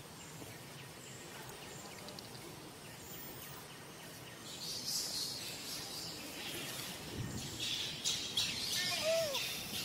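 Birds chirping, with scattered high chirps growing busier from about halfway through, and near the end a short call that rises and falls.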